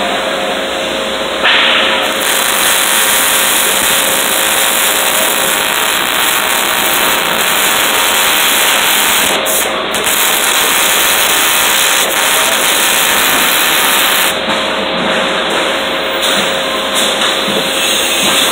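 Electric arc welding on steel: the arc hissing steadily, getting brighter in the upper range about a second and a half in.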